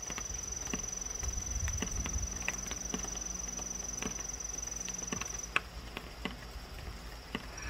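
Irregular drips of rainwater ticking and tapping on a plastic tarp, with a steady high-pitched whine that drops out about five and a half seconds in.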